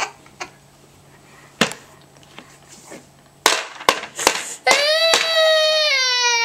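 A toddler crying: one long wail that begins about three-quarters of the way in and slowly falls in pitch. Before it come several sharp knocks.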